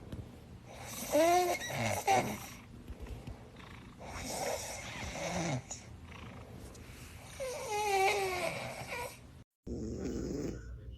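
Cat snoring loudly: three long drawn snores about three seconds apart, each with a wavering pitch. After a brief gap, a shorter, lower snore follows near the end.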